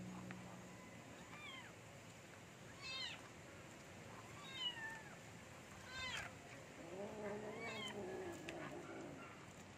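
A kitten meows over and over, about five high cries that each fall in pitch, crying to be noticed while the other cats are busy eating. About seven seconds in, another cat growls low and drawn-out, and the meowing stops.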